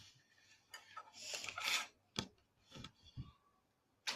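Slime being stretched slowly by hand: soft sticky rustles and a few small clicks.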